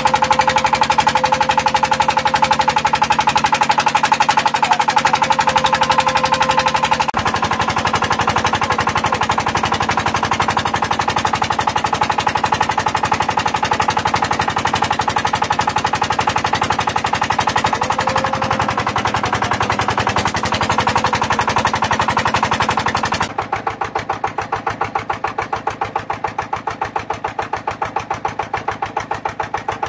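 Engine of a small motor outrigger boat running under way: a fast, even putter of firing strokes. About three-quarters of the way through it turns quieter, with a more distinct beat.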